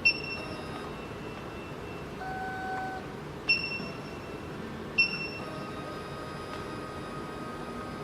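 Three short electronic beeps from the SEC-E9 key cutting machine's touchscreen as buttons are pressed: at the start, about three and a half seconds in, and about five seconds in. A steady low hiss runs underneath, with a couple of faint held tones between the beeps.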